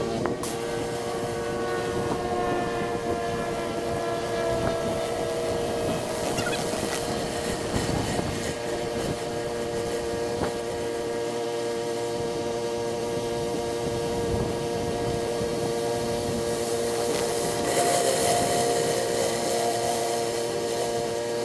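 Pressure washer running: a steady engine and pump drone with the hiss of the high-pressure water spray, which grows brighter and louder for a few seconds near the end.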